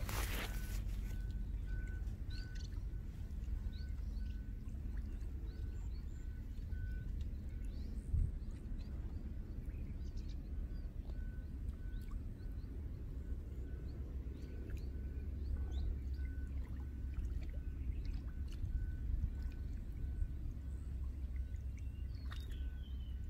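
Outdoor pond-side ambience: a steady low rumble with scattered bird chirps and a single high note repeated about twice a second, which pauses for a few seconds midway. A soft thump comes about eight seconds in.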